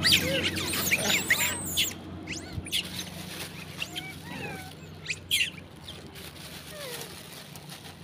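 Troop of long-tailed macaques giving high-pitched squeaks and chirps, a dense flurry in the first two seconds, then scattered calls, over a steady low hum.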